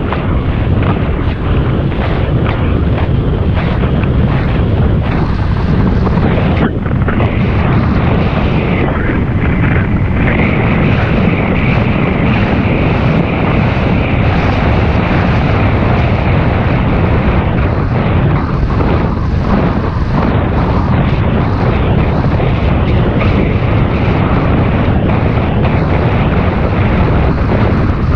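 Wind buffeting the microphone of a bicycle moving fast on a paved road: a loud, steady, deep rushing, with a higher hiss that rises for several seconds in the middle.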